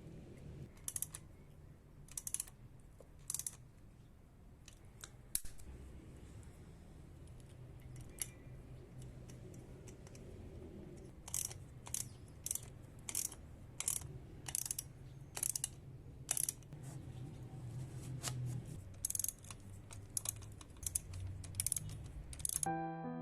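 Irregular sharp clicks and snips from hand work on a bicycle, about one or two a second, over a low steady hum. Piano music comes in just before the end.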